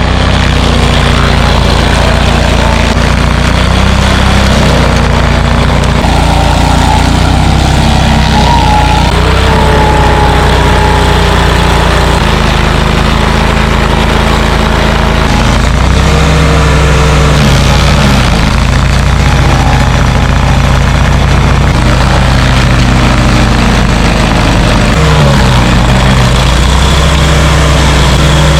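Bandit stump grinder running hard while grinding out a tree stump: a loud, steady engine whose pitch dips and recovers several times as the cutter wheel takes load.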